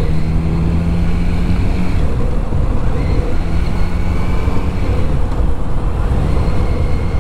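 Kawasaki Z900RS inline-four engine running at a steady cruising pace, with wind noise over the microphone. The steady engine note falls away briefly about two seconds in and comes back about a second later.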